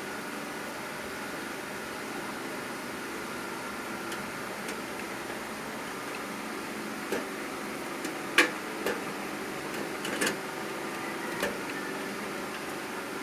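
Steady background hum, with a handful of sharp clicks and knocks from about seven to eleven seconds in, the loudest just past eight seconds: computer parts and cable connectors being handled and fitted in a PC case.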